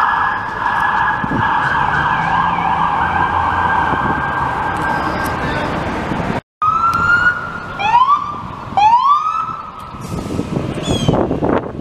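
Police car sirens. First a rapidly cycling electronic siren sounds continuously; after an abrupt cut, a second siren gives a few short rising whoops about a second apart, followed by a louder low rumble near the end.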